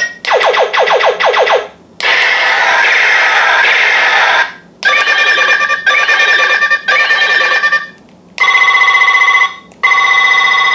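Bootleg battery-powered Ultraman transformation weapon toy switched on and playing its electronic sound effects: a run of quick falling chirps, a noisy burst, three ringing chimes, then two warbling tones.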